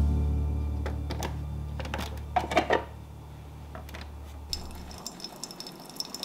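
Hard plastic clunks and clicks as a Keurig coffee maker's water reservoir and its lid are handled, the loudest a quick cluster between two and three seconds in. About four and a half seconds in, a fast, high ticking buzz starts up from the brewer.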